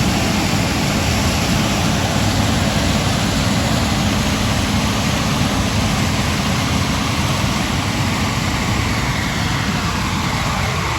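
Combine harvester running steadily in the field, a dense mechanical rumble with a falling whine near the end.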